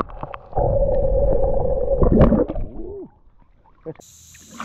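Creek water rushing and swishing against a microphone held under water, heard muffled with all the high sounds cut off; it is loudest for about two seconds, then ends in a short rising-and-falling tone. About four seconds in, the microphone comes back above the surface.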